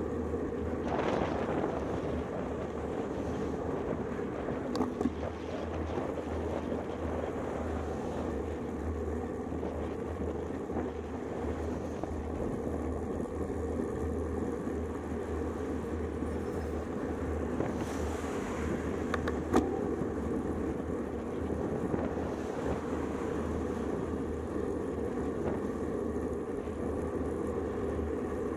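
Steady wind rush on a handlebar-mounted camera's microphone, with tyre and road noise from a road bicycle rolling along a paved highway shoulder. Two brief sharp knocks stand out, about five seconds in and again about twenty seconds in.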